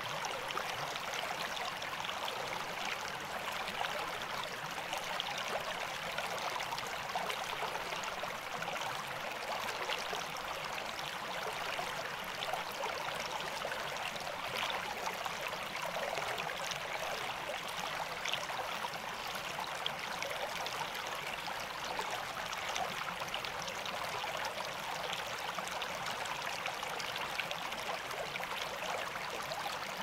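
Shallow rocky upland brook babbling steadily over and around stones, a continuous rush of flowing water.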